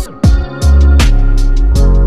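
Background music with a heavy bass line and a steady electronic beat.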